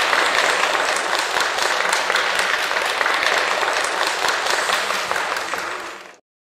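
Audience applauding steadily with dense clapping, fading out near the end.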